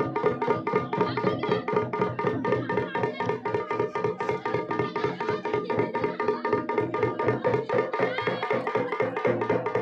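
Uttarakhandi dhol and damau drums played together in a rapid, even beat, with steady held tones sounding over the drumming throughout.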